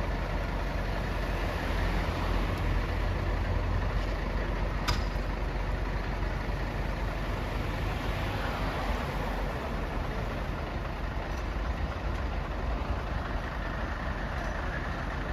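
Fire-department vehicle's engine idling steadily with a low rumble, and a single sharp click about five seconds in.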